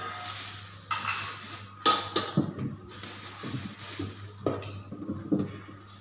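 Plastic carry bag rustling and crinkling as it is handled and set back on a fridge shelf, with a couple of sharp knocks of things against the shelves.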